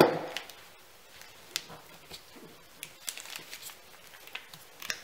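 Pliers working a glued-on end cap off a consumer firework canister shell: scattered light clicks and creaks of the cap being gripped and twisted, with one sharper click about a second and a half in.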